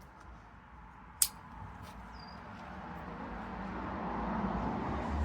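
A single sharp snip of bonsai cutters cutting through a juniper branch about a second in, followed by a low noise that slowly swells over the next few seconds.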